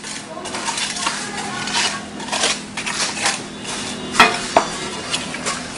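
Mason's trowel scraping and spreading wet cement-sand mortar on a floor bed in repeated short strokes, with two sharp clinks of the trowel a little after four seconds in.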